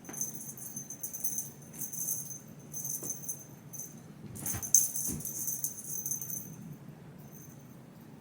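Small metal bell jingling in a string of short shakes, with a couple of soft thumps about halfway through. It stops about six and a half seconds in.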